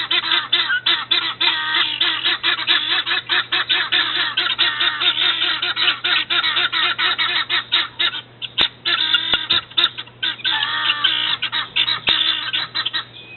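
Guinea fowl calling in a rapid, continuous harsh chatter, pausing briefly about two-thirds of the way through. A few sharp taps come through in the second half, the birds pecking at the window glass.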